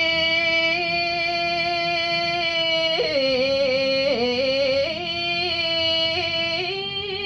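A woman's solo voice singing a Balinese geguritan in Sinom metre (tembang), holding long notes with slow ornamented pitch bends and no accompaniment.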